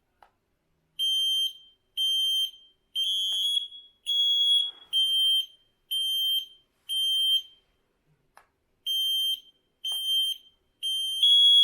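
Battery smoke alarms in full alarm: loud, piercing high-pitched beeps of about half a second each, roughly one a second, with a short pause about two-thirds of the way in. At times a second alarm's slightly higher beep overlaps.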